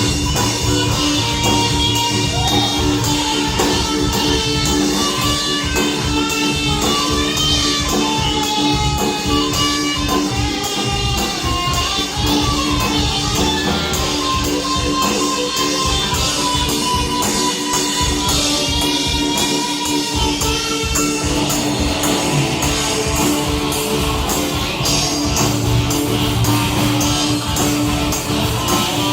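Music with a steady, busy beat of percussion strikes over a melody of held and moving notes, like guitar, played as a percussion sound check.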